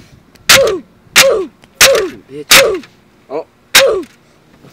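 Five loud metallic clangs, each a sharp hit with a short ring falling in pitch, about two-thirds of a second apart with a pause near three seconds. It is a steel clang sound effect laid over feet kicking a car's plastic wheel cover.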